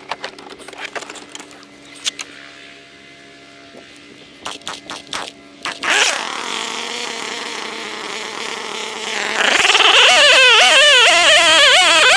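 Several clicks and knocks, then a small petrol engine starts about six seconds in. From about nine and a half seconds it runs loud at high revs, its pitch wavering up and down as if under changing load.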